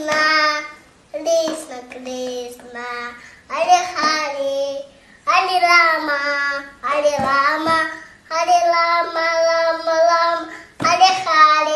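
A small child singing a devotional chant in long, drawn-out phrases, with a few light hand taps on a dholak drum.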